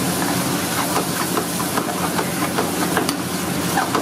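Chicken curry cooking in a steel kadai: a steady hiss with many small bubbling pops from the thick gravy. A couple of sharp metallic clicks from the ladle come about three seconds in.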